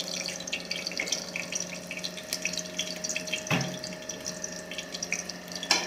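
Cumin seeds, green chillies and bay leaves sizzling and crackling in hot refined oil in a kadai while the tempering (tadka) browns. A spatula knocks against the pan about three and a half seconds in and again near the end.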